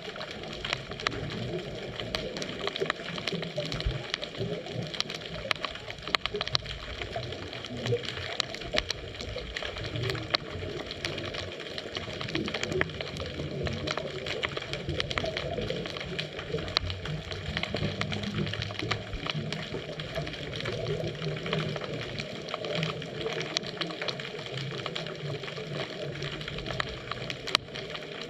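Underwater ambience picked up by a GoPro in its housing on a scuba dive: a steady muffled water wash with many fine crackling clicks throughout.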